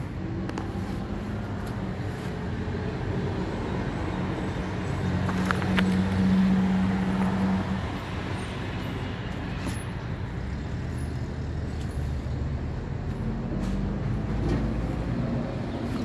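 Steady low rumble of passing road traffic, with a vehicle engine humming louder for a few seconds around the middle.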